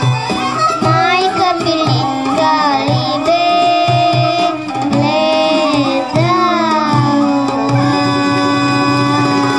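A young girl singing a Bulgarian folk song into a microphone over an instrumental accompaniment with a steady drum beat, holding a long note near the end.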